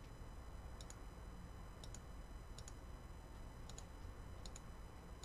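Computer mouse button clicking, faint, six times at roughly one-second intervals, each click a quick double tick of press and release, over a low steady room hum.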